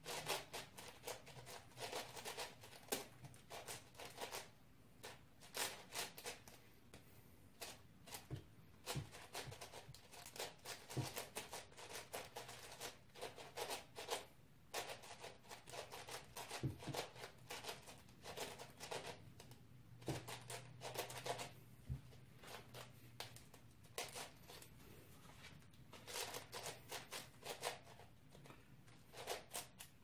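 A plastic speedcube turned rapidly by hand during a solve: a fast, uneven stream of clicks and clacks as its layers snap round.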